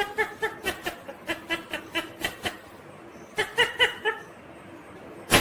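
Indian ringneck parrot mimicking laughter: a rapid string of short, high-pitched "ha" notes, about five a second, for two and a half seconds, then a brief burst of chattering calls. A sharp click sounds near the end.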